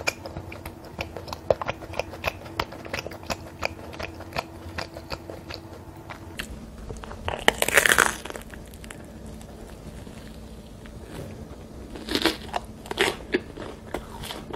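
Eating a salt bread roll: chewing with many small crisp crackles, then a loud crunchy bite into the crust about eight seconds in, and more crunching near the end.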